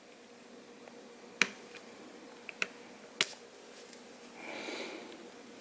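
Small connectors on a laptop motherboard being popped up off their sockets: three sharp little clicks over a couple of seconds, then a soft rustle near the end.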